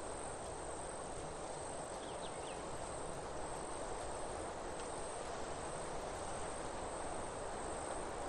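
Steady outdoor background noise: an even rushing hiss with a thin, high, unchanging whine above it, and a few faint high chirps about two seconds in. No call from the peacock.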